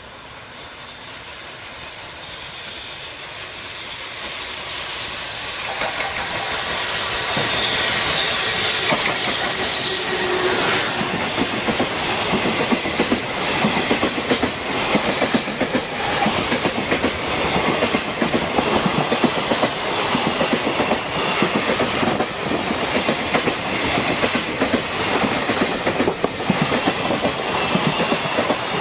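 JR Freight EF210 electric locomotive hauling a container freight train through a station without stopping: the sound builds over the first several seconds as it approaches and peaks in a rushing hiss about eight seconds in. After that comes a rapid, continuous clickety-clack of the container wagons' wheels over the rail joints.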